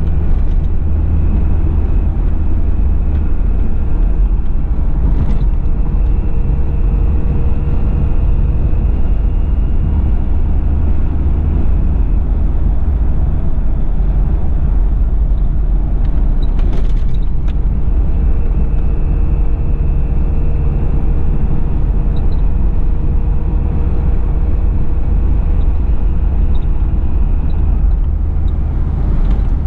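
1991 Toyota Land Cruiser Prado LJ78's 2.4-litre four-cylinder turbo diesel running with road noise at highway speed: a steady low drone with a thin, steady turbo whistle over it. The whistle drops out for several seconds midway, when a couple of brief clicks are heard, then returns.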